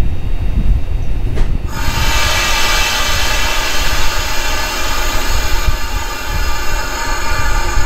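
Standing Shinano Railway 115-series electric train with a low rumble of onboard equipment; about two seconds in, a loud steady hiss with several fixed whistling tones starts and keeps going.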